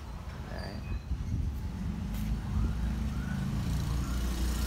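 An engine running nearby, a low rumble that grows gradually louder.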